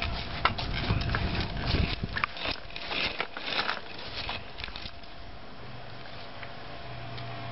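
Hard plastic wheels of a toddler's ride-on toy rolling over brick paving, a rumbling rattle with scattered clicks at the joints between the bricks, dying down after about three seconds.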